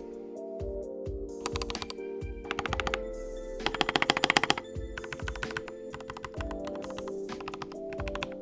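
Mechanical keyboard with Gateron G Pro Yellow linear switches being typed on in quick runs of keystrokes, over background music. The fastest, loudest run comes about four seconds in.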